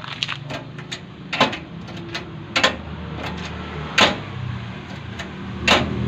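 Jeep-type door lock on a sheet-metal sidecar door being worked by hand: a few small metal clicks, then four sharp latch clacks about a second or so apart, the last two the loudest. A vehicle engine runs low underneath from about halfway.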